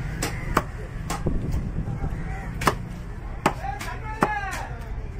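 Heavy cleaver chopping through a shark's body on a chopping block: several sharp chops, irregularly spaced about a second apart.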